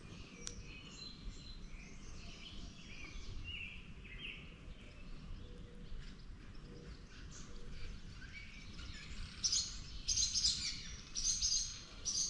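Songbirds chirping and calling, scattered at first, then louder quick runs of high chirps from about nine seconds in, over a faint low steady background noise.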